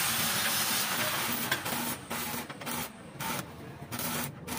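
Electric arc welding on a steel-tube sidecar frame: a steady crackling hiss that breaks off and restarts several times in the second half.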